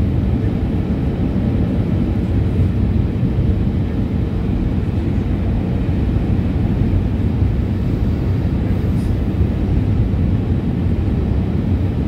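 Steady low rumble of an airliner's jet engines and rushing air, heard from inside the passenger cabin on the approach to landing.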